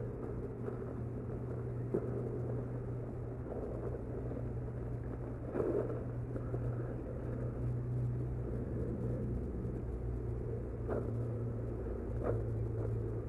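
A steady low rumble and hum, with a few light clicks and knocks scattered through it.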